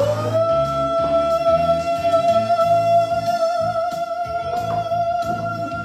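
Music: one long high note held steady over a pulsing bass line and scattered percussion hits.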